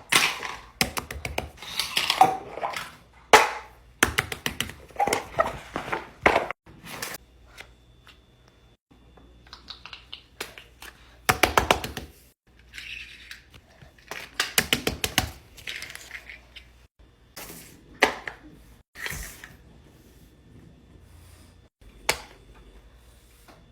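Fidget toys being handled, making quick runs of sharp clicks, taps and thunks. The clicks come thick and fast through the first several seconds, then in shorter, sparser clusters.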